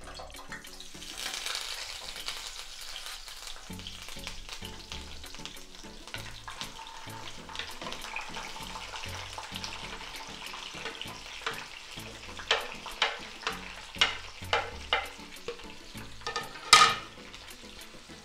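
Chopped vegetables and thyme sizzling in hot oil in a frying pan, the sizzle swelling about a second in. Toward the end comes a run of sharp knocks of a wooden spoon, the loudest just before the end.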